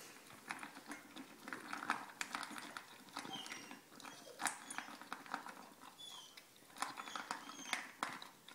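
Dog eating dry kibble from a stainless steel bowl: irregular crunching and sharp clicks as it bites and chews the pellets.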